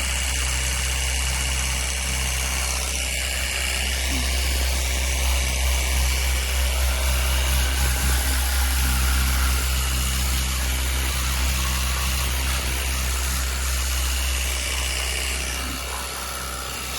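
Battery-powered portable pressure washer gun running steadily, its pump motor humming under the hiss of the water jet spraying.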